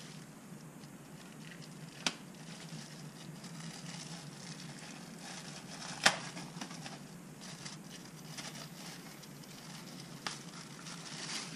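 Plastic packaging crinkling and rustling as a small electronic display is unwrapped by hand. A sharp click comes about two seconds in, and a louder snap about six seconds in.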